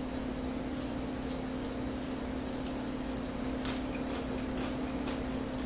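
Crunching while chewing a fried chicken drumstick's crisp cornmeal-and-flour crust: a handful of short, scattered crunches over a steady low hum.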